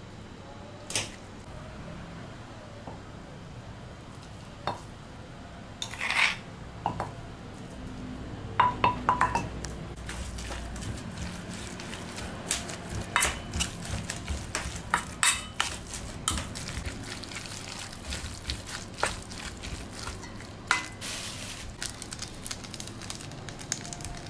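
Metal spoon clinking and scraping against a stainless steel bowl while stirring raw beef with seasoning paste. A few scattered strikes at first, some ringing, then frequent clinks from about halfway through.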